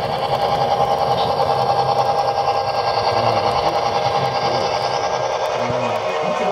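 HO scale model freight train rolling past close by, its wheels on the rails making a steady, rapid, even clatter with a thin whine.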